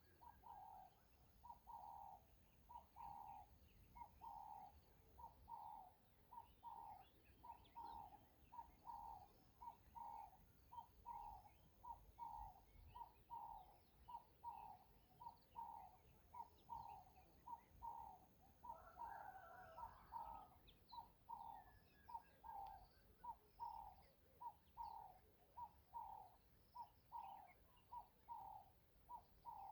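Faint bird call: one short note repeated evenly, about three every two seconds, without a break. Faint chirps of other birds sound behind it.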